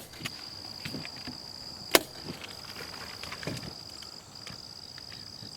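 A staple gun snaps once, sharply, about two seconds in, driving a staple through paper into a pressboard target, with faint paper handling between shots. Crickets chirp as a steady high tone throughout.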